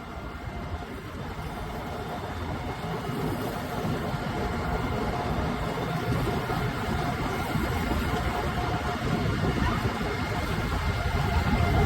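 Diesel engine of a combine harvester running on the road, a low rumble with a steady whine above it, growing steadily louder.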